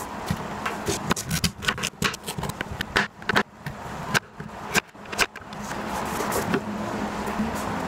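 Large kitchen knife chopping sweet potato on a wooden cutting board: a quick, irregular run of sharp knocks as the blade strikes the board. About five seconds in, the chopping stops and a steady hiss takes over.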